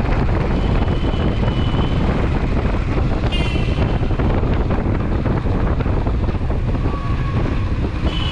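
Motorcycle riding along the road: steady engine and road rumble, with wind buffeting the microphone. A brief high beep, like a horn, sounds about three seconds in.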